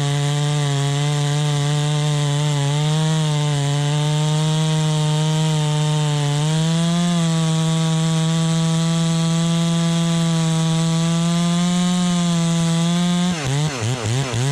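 Neotec MS 660 clone two-stroke chainsaw running steadily at high revs. About a second before the end the throttle is blipped, sending the engine note rapidly up and down several times.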